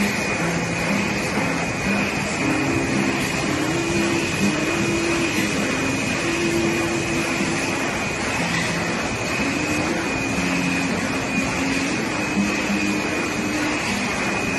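An automatic stop-cylinder screen printing press running at production speed: a steady mechanical rushing noise with a constant high whine.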